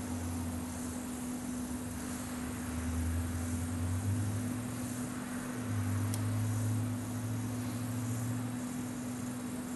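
Australian tarantula (Phlogius sp. 'Sarina') stridulating: a soft, faintly pulsing hiss, over a steady low hum.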